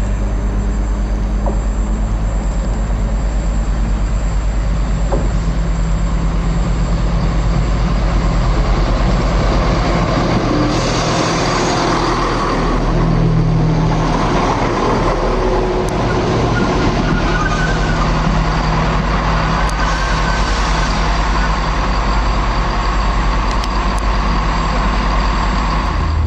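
Electric passenger train running into the platform: a steady motor hum over wheel rumble, with a louder rush of noise about ten seconds in.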